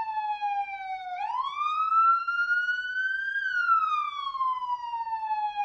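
Police siren on a slow wail: its pitch falls, sweeps back up about a second in, peaks past the middle and falls again.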